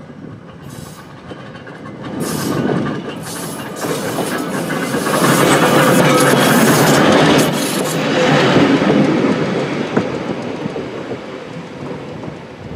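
Electric interurban trolley car No. 76 passing close by, its wheels running over the rails. The sound builds as the car approaches, is loudest about halfway through as it goes past, then fades as it moves away.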